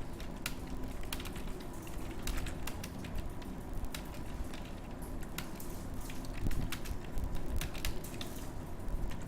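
Computer keyboard being typed on at a steady pace, irregular key clicks with a low hum underneath.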